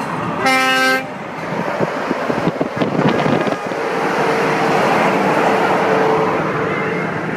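A single horn blast, about half a second long, comes just under a second in. It is followed by the heavy drone of a Scania V8 lorry and its tyres as it passes close alongside at motorway speed, with a held tone running through the second half.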